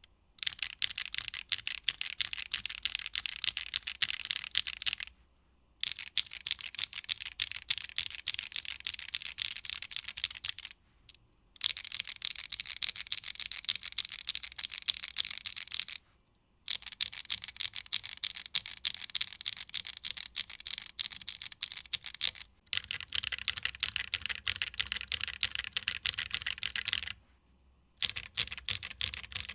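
Fast typing on a 65% mechanical keyboard with Gateron Blizzard tactile switches, a polycarbonate plate and ABS keycaps: rapid clacking keystrokes. The typing comes in six runs of about four to six seconds, with short pauses between them.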